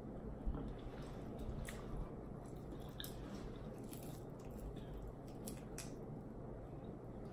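Fingers tearing a fried chicken wing apart and picking meat off the bone: scattered faint crackles of the crispy skin and soft wet squishes.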